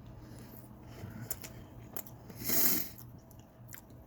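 Close-miked eating sounds: small wet mouth clicks and chewing of a sandwich topped with Doritos, with one louder, half-second crunchy rustle about two and a half seconds in.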